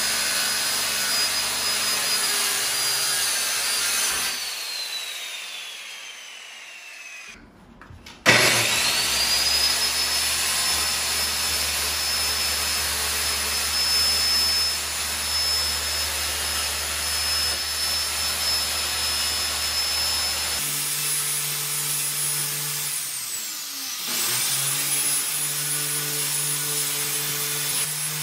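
Corded circular saw cutting through a plywood countertop, its motor running with a high whine. About four seconds in the trigger is released and the blade winds down to a stop; it is started again about eight seconds in and the whine climbs back up. Later the saw winds down and spins back up once more.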